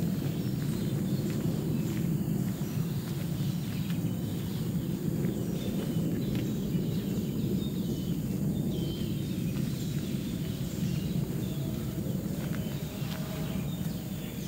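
Footsteps of several people walking on a dirt forest trail, under a steady low rumble, with a few faint high chirps.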